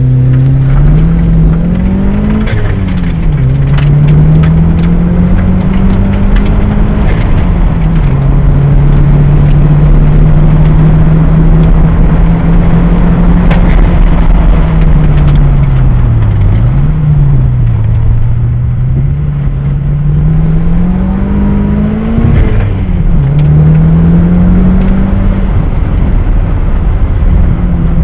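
Mitsubishi Starion's turbocharged four-cylinder engine heard from inside the cabin, pulling hard up through the gears. Its pitch climbs and breaks at several quick upshifts, holds steady through long stretches, and dips briefly about two-thirds of the way through before picking up again.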